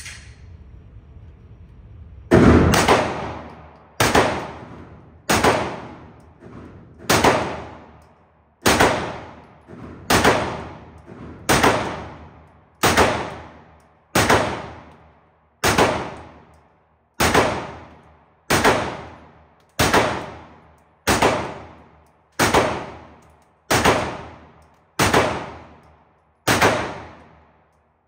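A firearm fired shot by shot at a steady, unhurried pace, about nineteen shots roughly a second and a half apart, each trailing off over about a second. The string starts about two seconds in.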